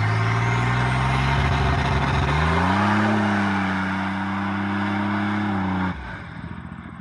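A 1992–93 GMC Typhoon's turbocharged 4.3-litre V6 pulls away under throttle, its engine note steady and then climbing in pitch about two and a half seconds in. Near the end the engine sound drops off sharply and fades.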